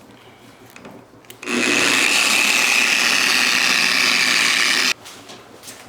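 Machine polisher on its low speed setting 2, spreading polish over a car body panel: it starts about a second and a half in, runs at a steady whir with a rubbing pad for about three and a half seconds, and cuts off abruptly.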